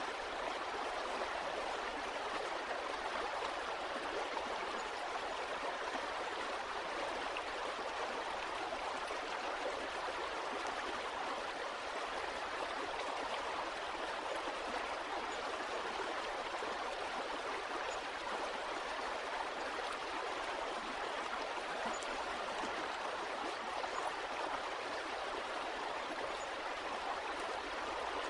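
Running water flowing steadily, an even, unbroken rush with no pauses or changes.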